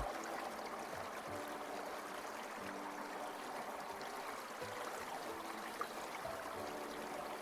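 Small water stream flowing and trickling, a steady babble with faint gurgling notes.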